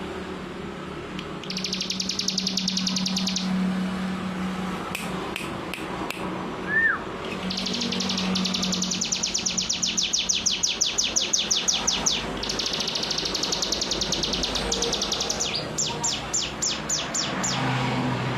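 A ciblek (prinia) singing its 'ngebren' song: long, very rapid drilling trills of high notes, three runs of a few seconds each, with a single down-slurred call between the first two. Near the end it breaks into slower separate notes, about three a second.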